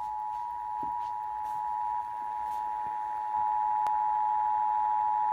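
Emergency Alert System attention signal over AM radio: a steady two-tone alert (853 and 960 Hz sounded together), the tone that opens a national EAS test. It holds one even pitch, stepping up slightly in loudness about three seconds in.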